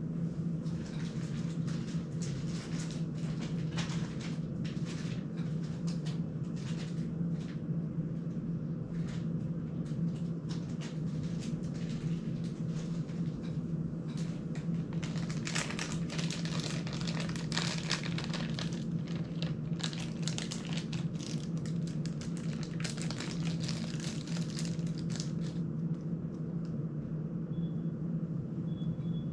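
Rustling, crinkling and light clicking from hands handling small parts and packaging at a workbench, irregular and busiest for about ten seconds around the middle, over a steady low hum.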